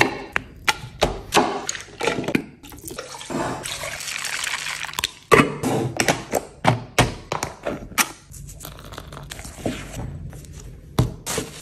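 A run of kitchen prep sounds: a knife cutting ginger on a wooden cutting board in quick strokes, the click of a plastic flour canister's push-button lid, and flour pouring with a soft rushing hiss.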